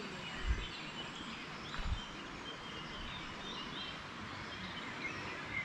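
Birds singing and chirping in the surrounding woodland over a steady outdoor background hiss. Two brief low thumps about half a second and two seconds in.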